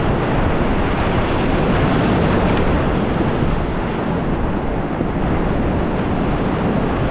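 Whitewater rapids of a creek rushing, a loud, steady roar of water.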